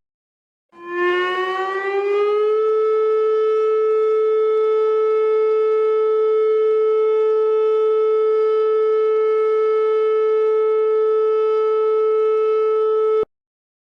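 Warning siren winding up from a low pitch over about two seconds, then holding one steady tone before cutting off abruptly near the end.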